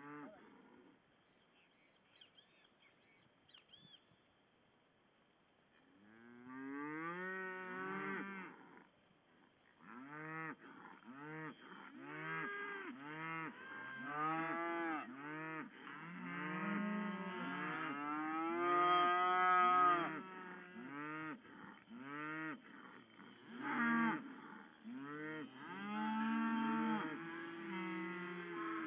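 Herd of Hereford and Hereford-cross heifer calves, most of them weaned, mooing. The first few seconds are nearly quiet. From about six seconds in come many overlapping calls, each rising and then falling in pitch.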